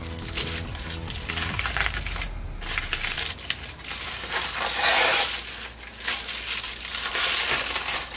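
Aluminium foil being unwrapped and crumpled off a double-wrapped burrito: loud, irregular crinkling and rustling in uneven bursts.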